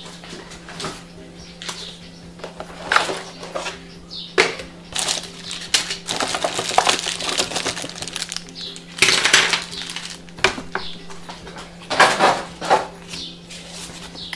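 Plastic bags crinkling and hard plastic drone accessories (landing legs and propeller guards for a JJRC H31 quadcopter) clattering on a wooden table as they are unpacked. The handling comes in irregular spells of rustling and knocks, busiest in the middle and again near the end.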